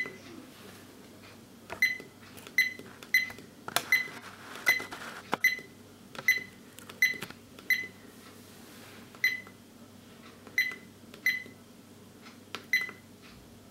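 Car dash-cam video recorder sounding a short electronic key beep each time one of its buttons is pressed, about fifteen times at irregular intervals as its settings menu is stepped through. Each beep starts with a faint click of the button.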